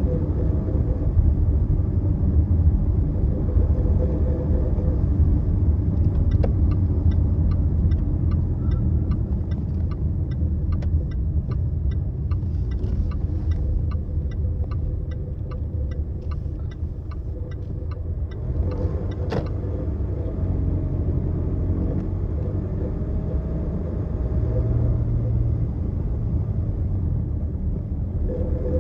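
Land Rover Discovery Sport driving, with a steady road rumble. For about twelve seconds in the middle there is an even ticking at roughly two a second, and a single sharp knock comes a little later.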